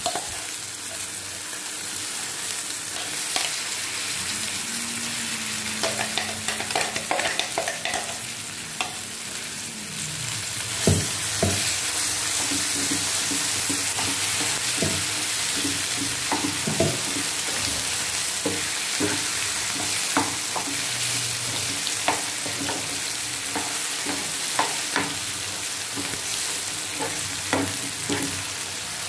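Ground red chilli and gongura chutney paste frying in hot oil, sizzling steadily, with a spoon scraping and clicking against the pan as the paste is stirred.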